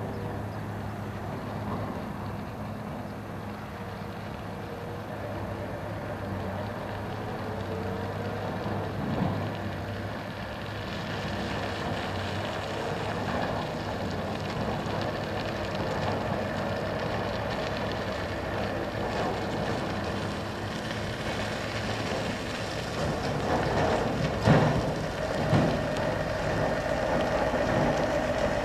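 Mercedes-Benz SK 3544 dump truck's V8 diesel engine running as the truck drives along a dirt haul road, growing gradually louder as it approaches. A couple of sharp knocks come about three-quarters of the way through.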